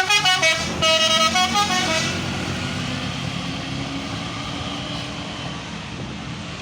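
Bus 'telolet basuri' musical air horn playing a tune of short stepped notes, stopping about two seconds in. The bus's engine and road noise then carry on steadily, slowly fading as it passes.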